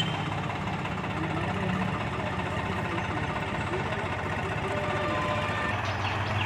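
New Holland 5510 tractor's diesel engine running steadily, its note changing to a firmer, steadier hum near the end.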